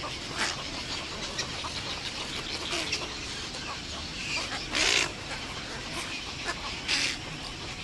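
Heron and cormorant nesting colony calling: a constant din of many overlapping harsh squawks and croaks. Louder single harsh calls stand out about half a second in, around 3 s, around 7 s, and loudest around 5 s.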